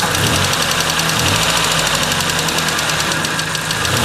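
Mazda 626's 2.0L FS four-cylinder engine running with a rapid, even knock. The owner suspects the knock comes from a bad exhaust valve in cylinder #3, found on a compression test showing 50% loss, with the valve being hit.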